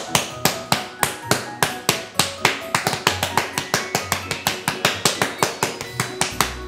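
Hands rapidly patting and slapping chilled cookie dough flat on a wooden cutting board, about four to six sharp slaps a second, with background music and a bass line underneath.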